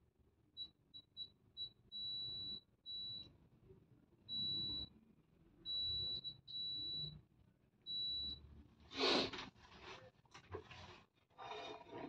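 A digital multimeter's continuity beeper sounding at one high pitch in an irregular run of short blips and half-second beeps as the test probes touch points on a printer's power supply board. About three-quarters of the way in, a louder clatter of handling, with more rustling near the end.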